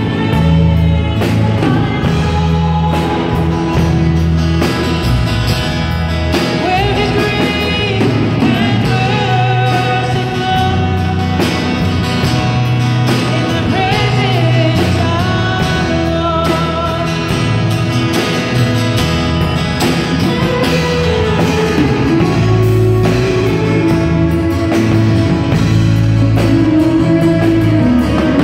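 Live gospel song: a woman singing the lead over acoustic guitar, electric guitar, electric bass and a drum kit.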